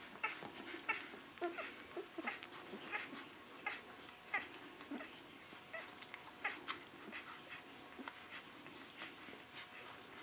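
Litter of six-day-old Great Dane puppies squeaking and whimpering: many short, high-pitched cries, irregular and overlapping.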